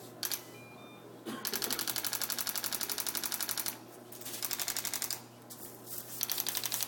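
ProAdjuster chiropractic instrument tapping rapidly on the patient, about ten taps a second, in several runs: a brief one near the start, a long one of about two and a half seconds, then two shorter ones.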